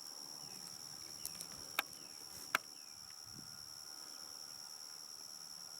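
Steady high-pitched buzzing of insects in the woods, with faint short falling chirps. Midway there are a few sharp clicks, the loudest two about a second apart.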